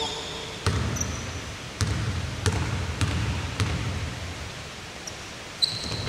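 A basketball bounced on the court floor about six times at an uneven pace, as a player readies a free throw. A short high squeak comes near the end.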